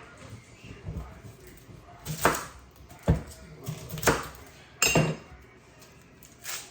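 Kitchen clatter: about five separate sharp knocks and clinks of dishes and utensils being handled, a second or so apart.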